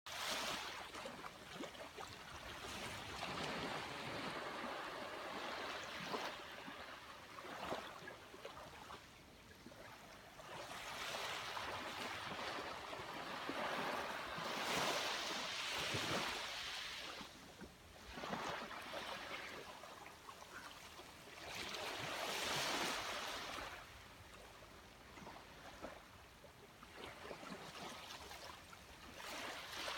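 Sea waves washing up onto a beach, each swell rising and falling away every few seconds, the biggest surges coming in the middle and again a little past two-thirds through.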